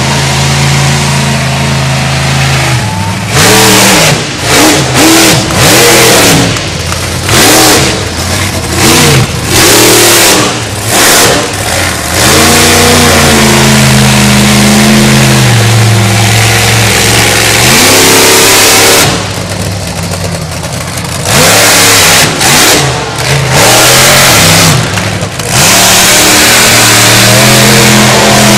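Monster truck engine revving very loudly in repeated throttle bursts, its pitch climbing and falling as it is blipped. About two-thirds of the way through it drops to a lower, quieter run for a couple of seconds before revving hard again.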